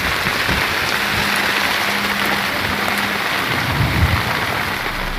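Heavy rain pouring down in a storm at sea, a steady dense hiss, with a few low thuds about four seconds in.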